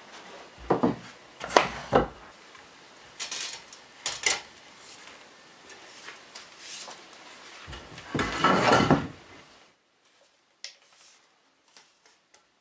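Wooden boards handled on a wooden plank floor: three sharp wood knocks in the first two seconds, lighter clicks, then a longer rough scrape of wood about eight seconds in, followed by a few small faint ticks.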